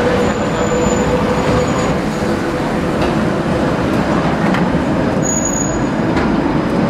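Red articulated low-floor tram passing close by on street track: a steady rumble of wheels on the rails, with a humming tone that fades over the first few seconds. Brief high-pitched squeals come about half a second in and again about five seconds in.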